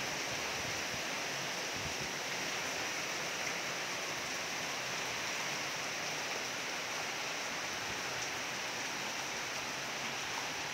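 Heavy rain falling steadily: an even hiss of drops on roofs, pooled water and wet paving.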